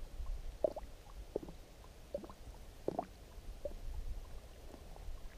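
Small lake ripples lapping against a camera held at the water's surface: a scatter of soft, irregular gurgles and plops over a low rumble.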